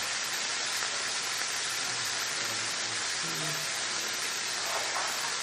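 Broccoli stir-frying in butter in a pan, sizzling with a steady even hiss.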